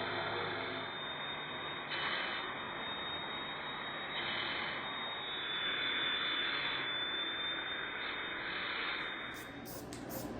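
Power cutting tool running steadily through the steel lip of a factory Jeep transfer case skid plate, swelling louder every two seconds or so as it bites into the metal.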